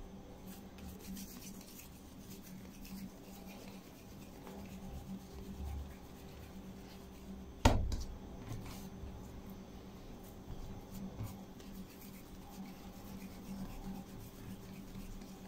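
Hands rounding soft yeast dough into balls on an oiled countertop: quiet rubbing, patting and squeezing, over a faint steady hum. One sharp knock comes about eight seconds in.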